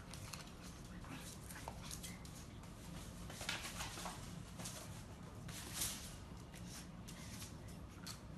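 Pug puppies play-wrestling on a wooden floor: scrabbling claws and scuffles with small puppy vocal sounds, loudest about three and a half and six seconds in.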